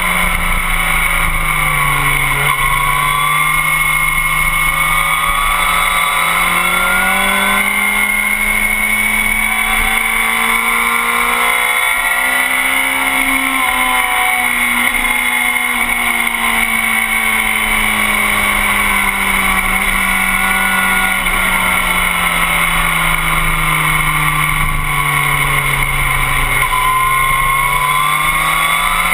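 Motorcycle engine running hard on a racetrack, heard from a camera mounted on the bike. Its pitch sinks through a corner about two seconds in, climbs slowly to a peak near the middle, falls away again through the next corner, then rises near the end, under a steady rushing noise.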